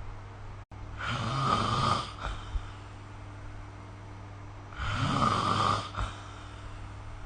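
A sleeping person snoring: two long snores about four seconds apart, each lasting about a second, over a steady low hum.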